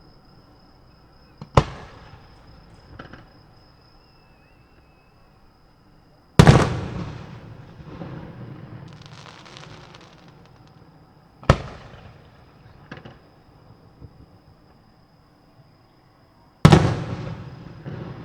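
Aerial fireworks shells bursting: four loud booms about five seconds apart, each trailing off in a rumbling echo, with crackling after the second boom.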